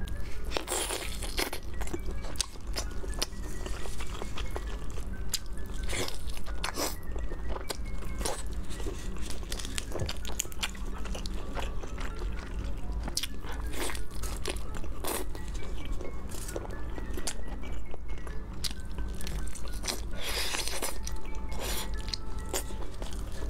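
Roast chicken being torn apart, bitten and chewed, with many short, sharp crunchy clicks, over background music.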